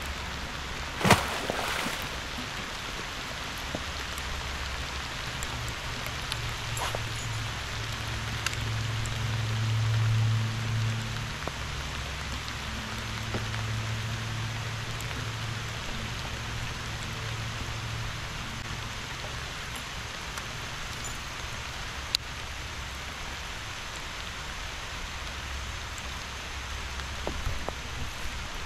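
Light rain falling steadily on the river, an even hiss. A sharp knock about a second in, and a low hum that swells around the middle and then fades.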